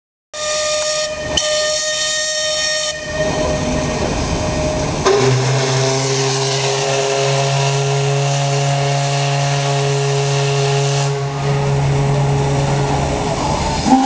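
Steam whistles on harbour steamers blowing long, overlapping blasts, with steam hissing. A higher-pitched whistle sounds for the first few seconds. A deep whistle comes in about five seconds in and holds for about eight seconds.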